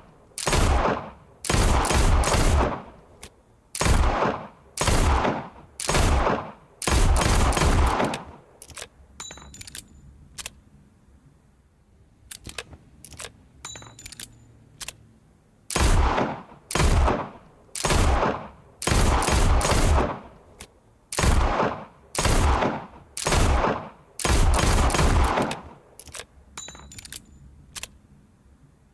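Revolver shots fired in two volleys, each a string of loud sharp bangs with ringing tails. Between the volleys come a run of light metallic clicks, like the gun's hammer and cylinder being worked, and more clicks follow near the end.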